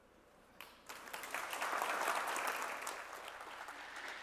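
Audience applauding at the end of a talk, starting a little under a second in and quickly swelling to full, steady applause.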